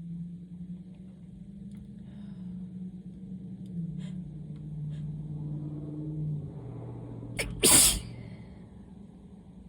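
A person sneezing once, loudly, about three quarters of the way in, with a brief sharp catch just before it. The sneeze follows several seconds of a low, steady hum in the voice, and the sneezing is from allergies.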